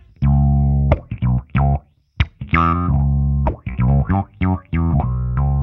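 Fender Precision Bass played through an EarthQuaker Devices Spatial Delivery envelope filter into a Fender Bassman amp and 4x10 cabinet. It plays a line of short plucked notes mixed with longer held ones, with a brief break about two seconds in.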